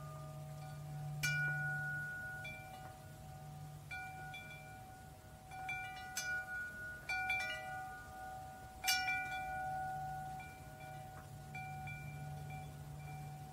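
Metal tube wind chime ringing, its tubes struck at irregular moments, several notes sounding together and ringing on long. The loudest strikes come about a second in and around nine seconds in, over a steady low hum.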